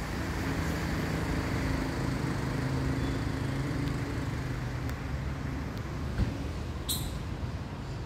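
Road traffic: a steady rumble of vehicles going by, with an engine hum in the first five seconds or so and a brief sharp click near the end.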